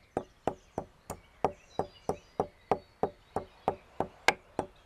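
Pestle pounding white peppercorns and lovage in a stone mortar: a steady run of sharp knocks, about three a second.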